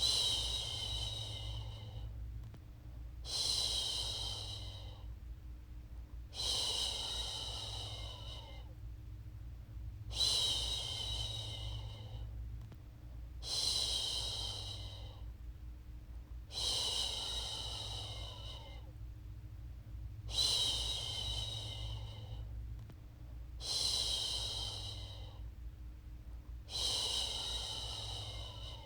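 A woman shushing a baby to sleep: long, even "shhh" sounds repeated about every three and a half seconds, nine times, over a steady low hum.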